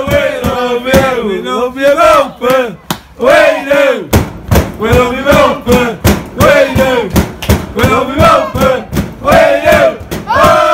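Football supporters chanting and singing together close by, loud and continuous, with sharp claps or bangs among the singing.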